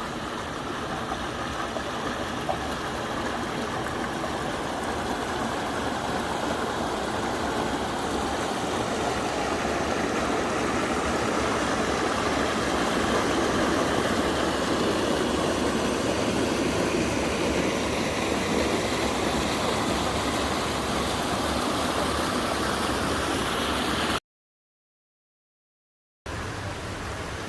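Creek water rushing steadily beneath piled granite boulders, an even hiss that swells a little midway. The sound cuts to silence for about two seconds near the end, then resumes.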